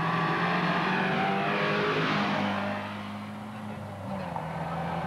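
Racing car engine at high revs accelerating up a mountain road and passing, its rush of noise easing off about three seconds in.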